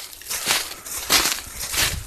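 Footsteps crunching through dry fallen leaves, a crackling step about every two-thirds of a second.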